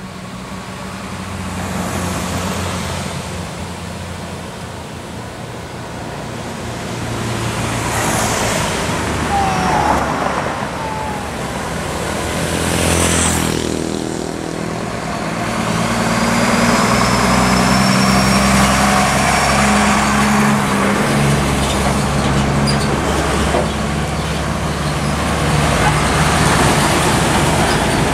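Heavy diesel trucks driving slowly past one after another, their engines a low drone with tyre and road noise. The sound swells as each rig goes by and is loudest in the second half, when the big trucks are closest.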